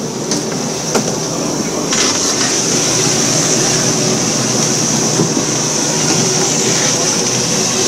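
Lobster boat's engine running steadily, with a few sharp knocks as wire lobster traps are handled on deck early on and a high hiss that grows louder about two seconds in.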